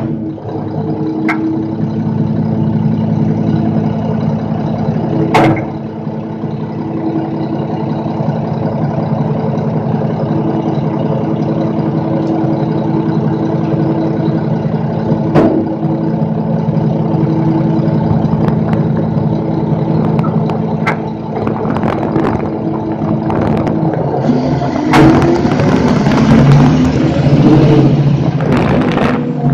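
Front-load garbage truck engine idling steadily, with three sharp knocks, the loudest about five seconds in. Over the last few seconds the engine revs up and runs louder.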